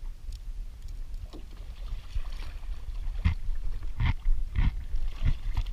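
Chewing on crunchy tortilla chips with ceviche, a few crunches about two-thirds of a second apart in the second half, over a steady low rumble of wind and water around a kayak.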